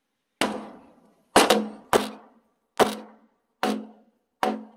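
Large wooden mallet pounding the notched cross-joint of two log beams, about seven heavy blows a little under a second apart, two of them in quick succession. Each blow has a short, low ringing decay.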